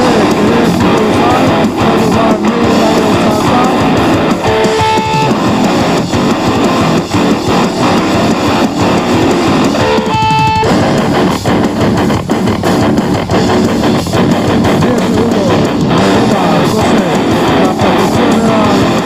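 Heavy metal music driven by loud electric guitar and bass, with brief clear held notes breaking through about five and ten seconds in.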